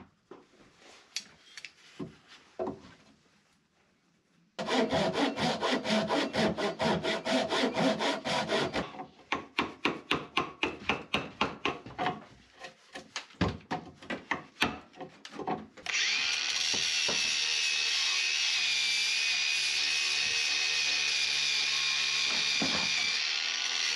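Cutting a lap joint in a wooden bearer: a few seconds of rapid, even sawing strokes, then a chisel being struck, about two or three blows a second, and from about two-thirds of the way through an angle grinder running steadily against the timber.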